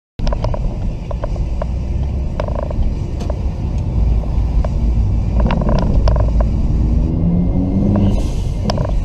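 A car driving, heard from inside the cabin: a steady low rumble of engine and road noise with occasional sharp clicks. The engine note rises in pitch as it speeds up through the middle.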